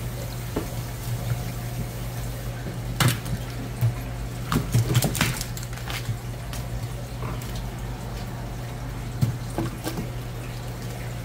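Wet handling of fish being gutted by hand on a plastic cutting board: squelching with a scattering of sharp clicks and knocks, most in the middle and a couple near the end, over a steady low hum.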